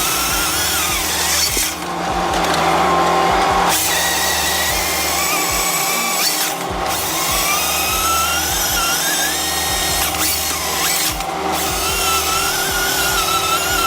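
Power saw on a forestry machine running under load, a loud whine whose pitch rises and falls, broken by several abrupt cuts.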